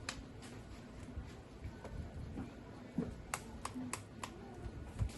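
Sharp clicks and light knocks of handling work. A quick run of about four ticks comes a little past halfway, and a dull thump comes near the end.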